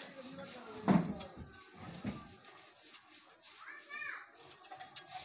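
Background voices, children's among them, with a sudden loud bump about a second in.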